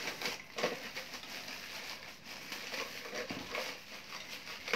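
A thin plastic bag crinkling and rustling as it is handled, in a steady run of small irregular crackles.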